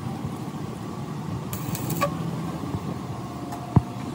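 Steady mechanical hum of a nearby engine or motor running, with a brief hiss about one and a half seconds in and a single sharp metal knock near the end.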